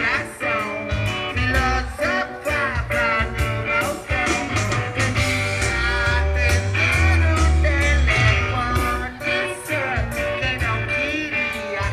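Live rock band playing: a man singing lead over drums, bass and keyboard, with a steady beat.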